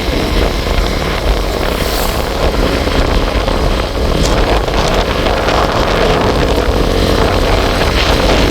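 A vehicle running steadily on the move, with wind rushing across the microphone.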